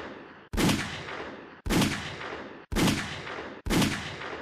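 Four shots from a 3-inch-barrel 9mm pocket pistol firing 124-grain +P hollowpoint loads, about one a second. Each sharp report is followed by a fading echo that cuts off abruptly as the next shot begins. The tail of an earlier shot is heard at the start, and the last echo dies away near the end.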